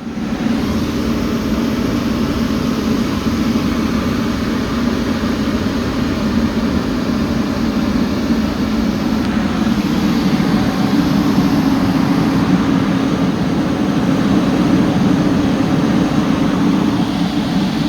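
Volvo EC300E excavator's diesel engine running steadily, growing slightly louder over the stretch.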